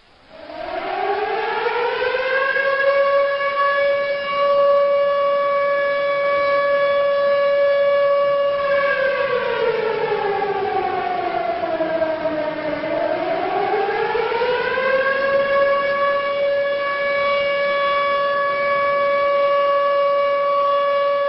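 Siren winding up over about two seconds to a steady wail and holding it. About nine seconds in it sags in pitch, then winds back up to the same steady tone by about fifteen seconds.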